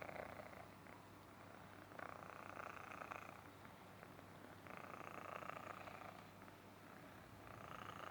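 Himalayan Persian kitten purring softly, swelling louder about every two and a half seconds in time with its breathing.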